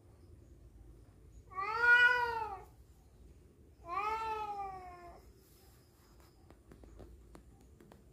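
Two rival tomcats in a standoff, one giving two long, drawn-out yowls: the first, and loudest, rises and falls about two seconds in, and the second slides down in pitch about four seconds in. This is the threat yowling of males squaring up to fight over a female.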